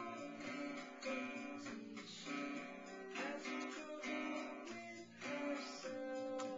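Music: acoustic guitar strumming chords, with the chord changing about once a second.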